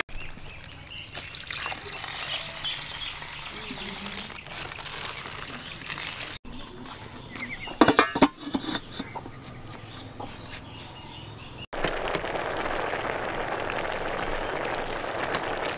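Split mung beans rustling as they are poured into a metal pot, with faint bird chirps. About eight seconds in, a few sharp ringing clanks of the metal pot and its lid on the clay stove. Over the last four seconds, a steady hiss from the pot of cooking beans.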